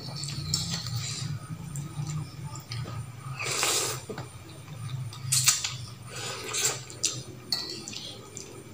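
Eating instant noodles: one long slurp of noodles a little past halfway, with chewing and a few sharp clicks of a metal fork and spoon against a glass plate. A steady low hum runs underneath.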